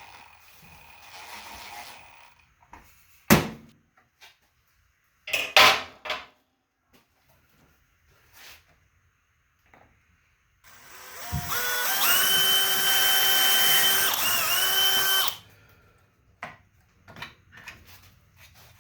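Power drill driving a screw: the motor whines for about four seconds, stepping up in pitch as it starts and wavering briefly before it stops. A few sharp knocks from handling the tool and parts come before it.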